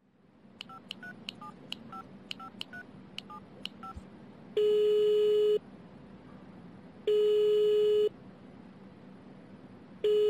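A telephone number is dialled on a keypad: a quick run of short two-note touch-tone beeps. Then the line's ringing tone sounds three times, one steady beep of about a second each, heard from the caller's end while waiting for an answer.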